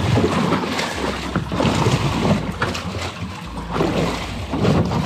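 Wind buffeting the microphone over water splashing and slapping against a small boat's hull, with a steady low rumble underneath.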